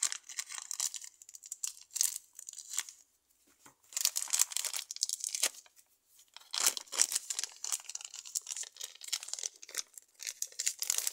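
Plastic bag of modelling clay crinkling as it is handled to get clay out, in irregular crackly bursts with a short pause about three seconds in.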